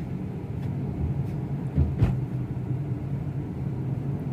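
Steady low drone of engine and road noise heard inside a Honda City sedan's cabin while it drives along, with one short click about two seconds in.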